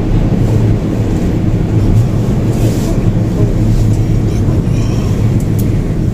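Steady low rumble with a constant hum inside a moving cable car cabin as it travels along the haul rope.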